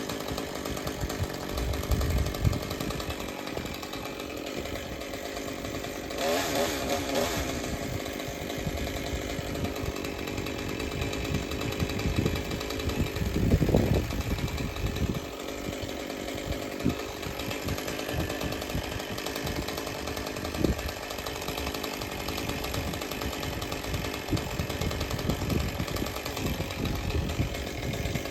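Chainsaw running steadily as branches are cut from a pine, revving up briefly about six seconds in.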